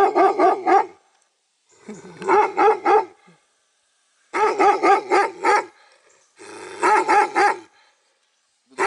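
Guard dog barking in rapid volleys: four bursts of about five quick barks each, separated by short pauses.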